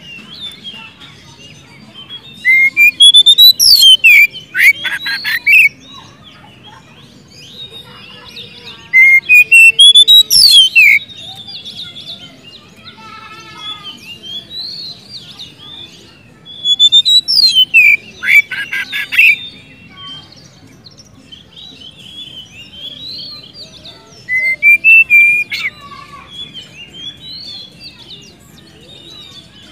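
Oriental magpie-robin (kacer) singing in full voice: four loud phrases, each a run of rising and falling whistles breaking into a fast, harsh rattling trill, with soft twittering between the phrases.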